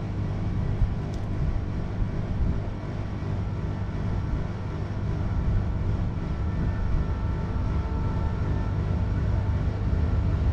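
Diesel-electric locomotive of a freight train running steadily with a low engine drone, growing slowly louder.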